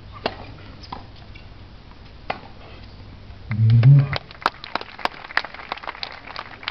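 A few sharp pops of a tennis ball being struck and bouncing, then a man's voice close by, brief and loud, about three and a half seconds in, followed by a small crowd clapping.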